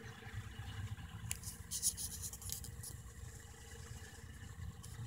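Crinkling plastic packaging being handled: a run of sharp rustles about a second in, lasting under two seconds, over a low steady rumble.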